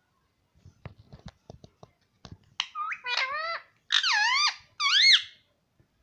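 Indian ringneck parakeet making a few soft clicks, then a run of four squeaky calls that swoop down and back up in pitch, the last two the loudest.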